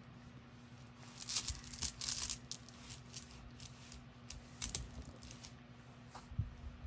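Soft rustling and crackling of polyester fiberfill being stuffed and packed into a cloth sock, in irregular bursts with a few light clicks.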